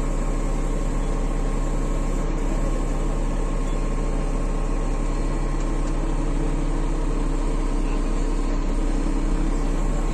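An engine idling steadily with an even low hum, without revving or changes.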